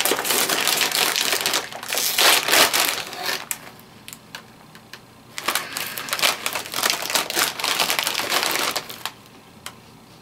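A potato chip bag is pulled open and handled, crinkling and rustling in loud bursts. There is a quieter stretch of scattered crackles around the middle, then more crinkling, which dies down near the end.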